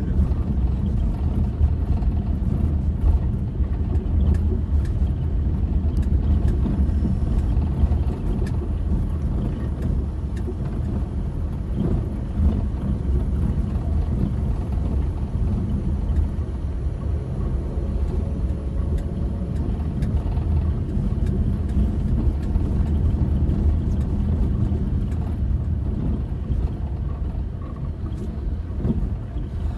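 A car driving on an unpaved dirt road, heard from inside the cabin: a steady low rumble of engine and tyres on the rough surface, with a few faint ticks.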